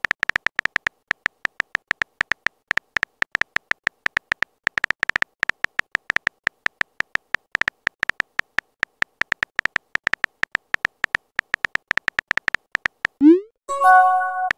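Texting-app keypress sounds: short, high electronic beeps several times a second, unevenly spaced, one for each letter typed. Near the end a quick rising swoosh is followed by a brief chime of several notes, the message-sent sound.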